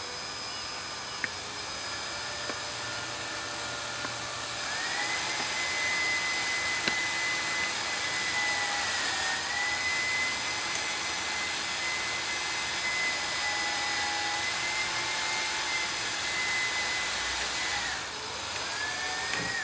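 Cordless 19.2-volt drill running a small bit, boring a pilot hole through the aluminium diamond plate kick panel into the metal strip beneath it. The motor whine runs slowly at first, climbs to a steady high speed about four seconds in and holds there, then drops near the end and briefly spins up again.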